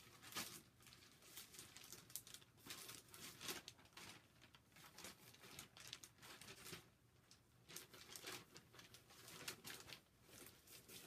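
Faint, irregular crinkling and rustling of plastic cross-stitch project bags being handled.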